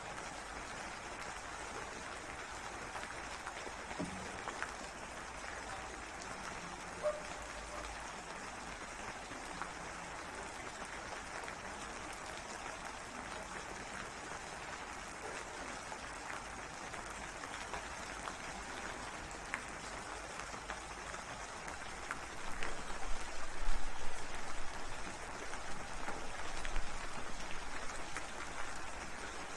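Steady rain hiss with scattered individual drops ticking, growing louder and more uneven about three-quarters of the way through.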